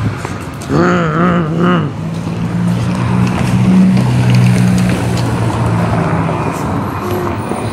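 A motor vehicle passing on the street: a steady low engine hum that swells to its loudest around the middle and fades, over general street noise. A brief wavering voice is heard about a second in.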